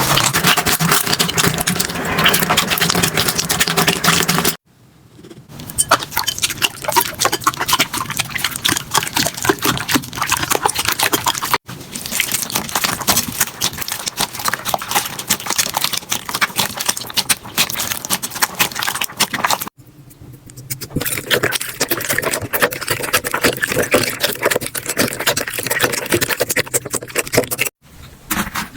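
Slime being squeezed, poked and stretched by hand, giving dense crackling, popping and sticky clicking. Several short clips cut abruptly one after another.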